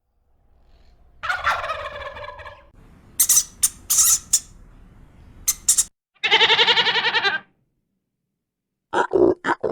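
Bird calls: a pitched call, a run of short high chirps, then a longer, rapidly warbling call. After a brief gap, a quick series of short calls begins near the end.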